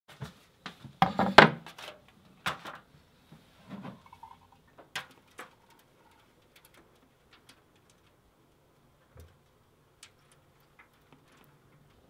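Handling noises on a wooden worktable: a burst of knocks and rattles about a second in, a few single knocks over the next few seconds, then only sparse faint clicks.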